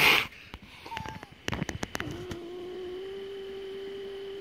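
A domestic cat shut in a wire live trap hisses sharply, then a few quick clicks follow, and from about two seconds in it holds a long, low, steady yowl: the defensive warning of a frightened, cornered cat.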